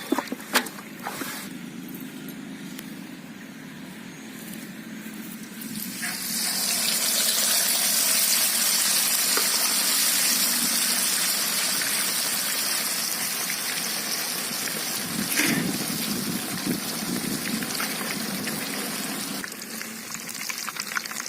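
Hot oil sizzling loudly around a whole chicken frying in a pot; the hiss starts suddenly about six seconds in and eases off near the end, after a few light knocks at the start.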